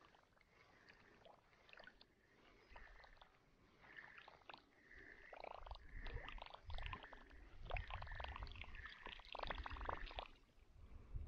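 Fishing reel being cranked to retrieve a cast lure: quiet rapid clicking and whirring, with soft water sounds. It grows louder about halfway through, when low rumbles come in.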